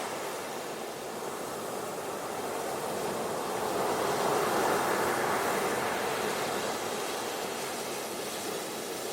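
Ocean surf washing on a beach: a steady rush of water that swells to a peak about halfway through and eases off again.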